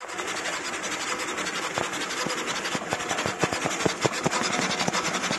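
High-speed 3D printer printing PLA at up to 1000 mm/s with 40,000 mm/s² acceleration: its stepper motors and toolhead make a dense, rapid, stuttering buzz of short chirps and knocks as the head whips back and forth, busiest and loudest in the middle.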